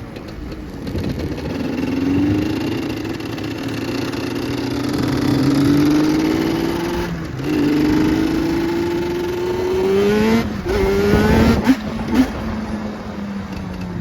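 Yamaha Banshee's twin-cylinder two-stroke engine pulling through the gears. The revs climb, drop back at a shift, and climb again twice. Near the end there are two sharp loud blips before the engine settles to a steadier, lower note.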